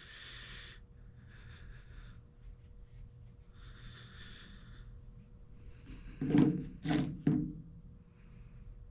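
A grease brush and fingers rubbing along a steel brake cable, in several soft, hissy spells. Three short, louder knocks come about six to seven seconds in.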